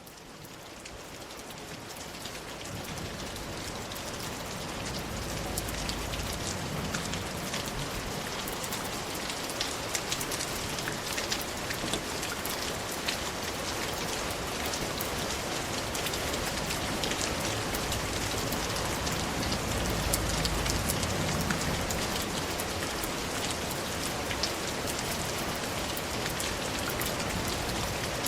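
Steady rainfall, with many sharp individual drops ticking close by, fading in over the first few seconds. A low rumble swells briefly twice.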